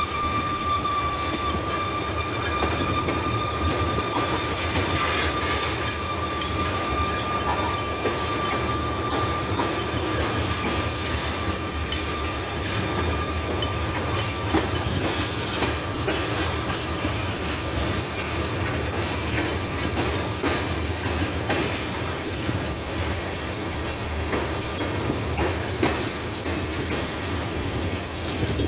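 Freight train tank cars rolling past close by: a steady rumble of steel wheels on rail with irregular clicks over the rail joints. A high, steady wheel squeal sounds at the start and fades away after about ten seconds.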